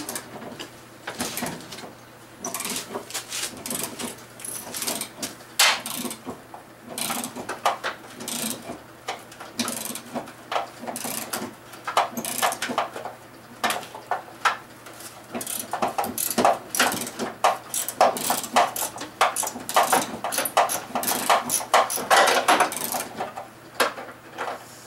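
Hand tools working on bolts during a vehicle teardown: a long run of sharp, uneven metallic clicks and clanks, coming thicker in the second half.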